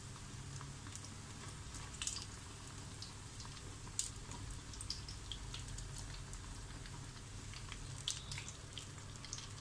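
Batter-coated potato slices deep-frying in hot oil: scattered pops and crackles, with a steady low hum underneath.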